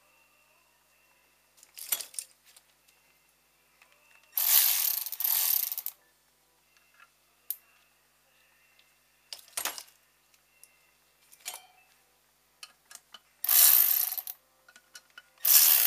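Hand tools at work on an engine's valvetrain: scattered clicks and knocks, with three loud spells of fast ratchet-like clicking about a second long, a few seconds in, near the end, and at the very end.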